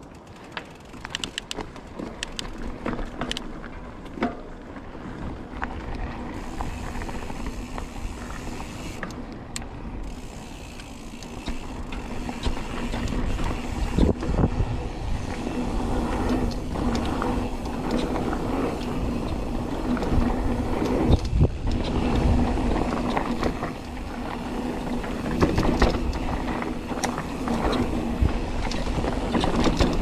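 Mountain bike riding a dirt trail: tyre noise with many sharp rattles and knocks from the bike over rough ground, plus a steady low hum. It gets louder about halfway through.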